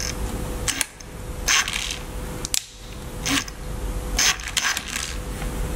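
Light metallic clicks and scrapes, about six spread over the few seconds, as steel valve keepers are worked onto a valve stem held under a valve spring compressor in a Subaru EJ22 cylinder head.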